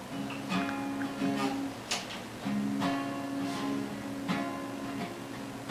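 Acoustic guitar strummed in a steady rhythm, a stroke about every three-quarters of a second, playing the song's instrumental introduction before the vocals come in.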